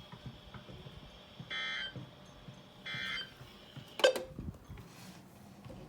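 Two short bursts of Emergency Alert System end-of-message data tones (SAME digital signal) from a weather radio, about a second and a half apart. A loud click follows about four seconds in, over faint radio hiss.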